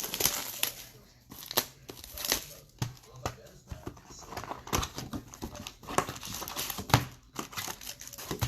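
Foil wrapper of a trading-card pack being torn open and crinkled, with the cards inside being handled, in a run of short, irregular rustles and crinkles.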